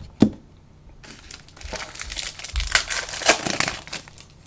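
Trading-card pack wrapper crinkling as it is handled and opened: a sharp click, then about three seconds of dense crackling that peaks near the end before dying away.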